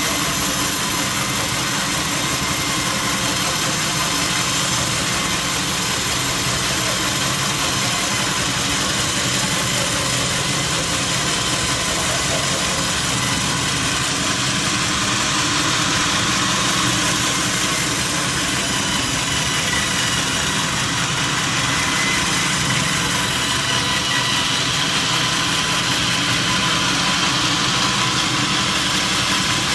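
Sawmill machinery running steadily, a continuous loud mechanical hum and hiss with no breaks.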